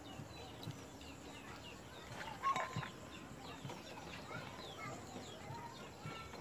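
Birds calling in the background: many short chirps throughout, with one louder call about two and a half seconds in.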